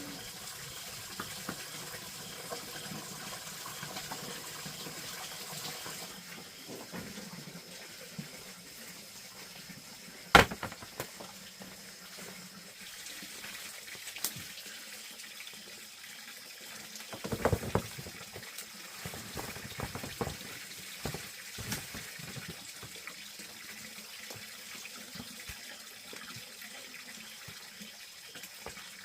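Water running steadily, like a tap or pipe pouring. A single sharp knock about ten seconds in, and a short burst of knocks a few seconds later.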